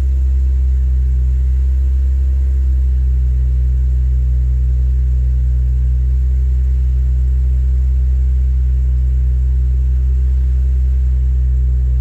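Lexus engine idling steadily just after a cold start on E85 fuel, a constant low hum heard from the driver's seat.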